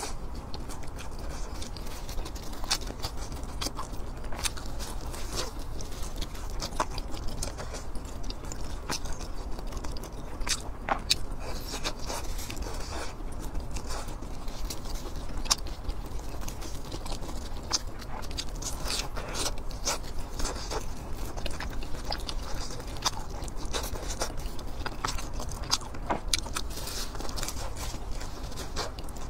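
A person biting and chewing a sausage and a crisp fried meat-filled bun, close to a clip-on microphone. Many small crunchy and wet clicks come at an irregular pace.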